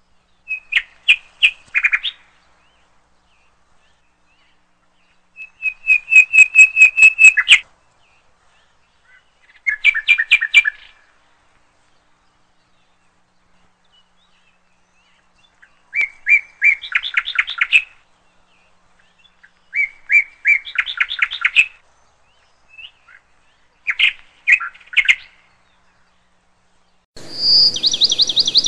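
A small bird chirping in short phrases of rapid, repeated notes, about six phrases a few seconds apart. A higher-pitched chirp over faint background hiss comes in near the end.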